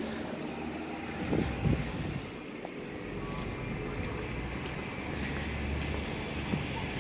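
Road traffic beyond the station fence: a low, steady rumble of vehicles. There are a couple of low thumps about a second and a half in, and a brief, thin, high whistle near the end.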